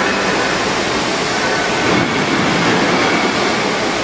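Steady rushing mechanical noise with a faint high tone running through it, without distinct knocks or strokes.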